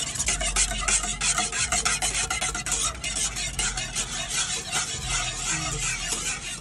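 Wire whisk scraping rapidly and continuously against a metal pan while beating a thick glutinous rice flour paste.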